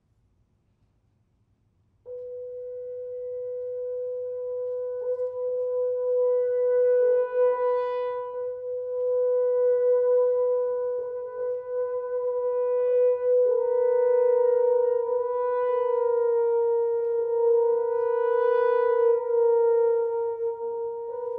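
Wind instruments, among them a French horn, enter about two seconds in and hold long notes close together in pitch. The notes swell slowly and shift slightly in pitch every few seconds.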